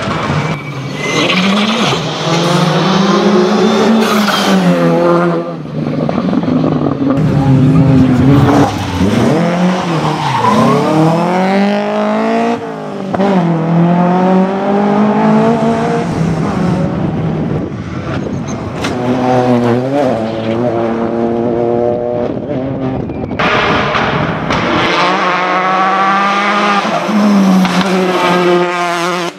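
A string of rally cars driven flat out one after another, among them a Renault Clio, a historic Opel Kadett GT/E and a Citroën DS3. Engines rev up and drop back again and again through gear changes, with some tyre squeal.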